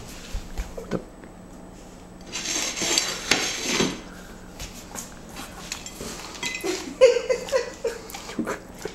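Labrador retriever eating a birthday cupcake off a ceramic plate on the floor. There is a loud scuffling stretch a couple of seconds in, then the plate clinks and knocks and the dog chews.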